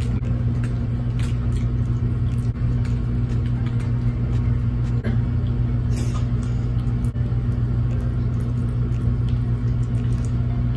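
A steady, loud low hum, with scattered small clicks and crunches of eating Hot Cheetos–coated seafood, chewing and mouth sounds, over it.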